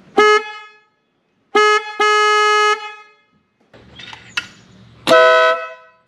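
Car horn honks in two parts. First the 2017 Acura NSX's stock horn gives one short single-tone beep, then a short and a longer beep a second later. About five seconds in, the aftermarket Wolo Bad Boy air horn sounds, louder, with several tones at once in a chord.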